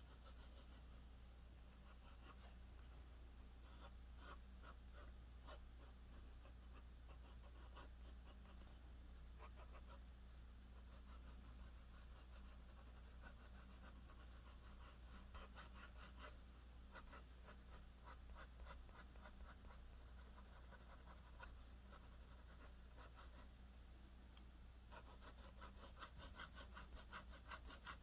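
Pencil scratching on paper in rapid runs of short strokes, laying in strands of hair, with brief pauses between flurries. It is faint, over a steady low hum.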